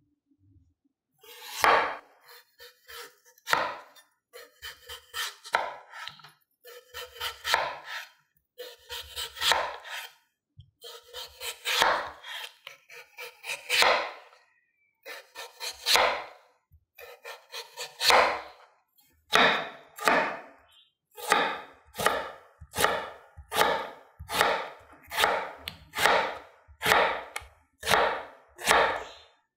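A chef's knife cuts through a raw peeled potato and strikes an end-grain wooden cutting board with each stroke, a crisp cut and knock every time. The cuts are slow and spaced at first, then become a steady run of a little more than one cut a second in the second half.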